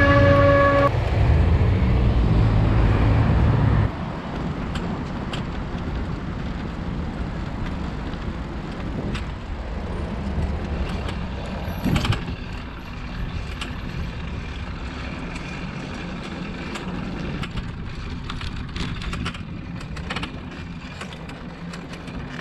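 Street traffic heard from a camera on a moving bicycle: a heavy vehicle's low rumble for the first four seconds, then steadier road noise with scattered light ticks and a sharper knock about twelve seconds in.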